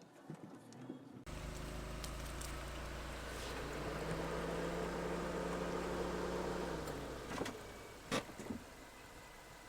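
Suzuki Jimny JB74 engine running with a low rumble. It starts abruptly about a second in, rises a little in pitch, holds, then falls away near the end. A sharp knock follows about eight seconds in.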